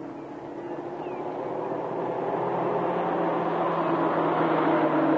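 A 1930s car's engine running as it drives closer across an open dirt field, growing steadily louder.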